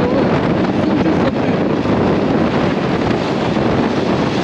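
Steady wind rushing over the microphone of a moving motorcycle, with engine and road noise underneath.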